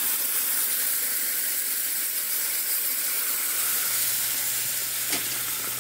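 Butter with onions and bell peppers sauteing in a hot stainless steel pot: a steady, even sizzle, with one faint tick near the end.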